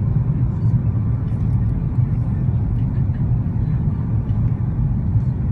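Steady low rumble of cabin noise inside an Airbus A330-300 airliner on approach: engine and airflow noise heard through the fuselage at a constant level.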